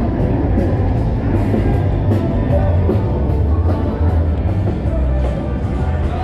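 Loud amplified rock music from the honky-tonk bars, with a pounding drum beat and a heavy bass line.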